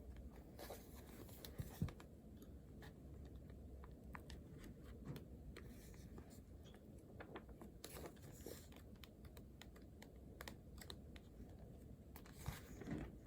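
Quiet room with scattered faint clicks, taps and light scratching, small handling sounds at a desk.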